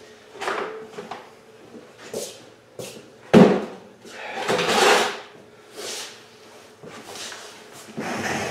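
A large plastic tub set down on a concrete floor with one loud thud about three seconds in, followed by about a second of scraping and a few smaller knocks of handling.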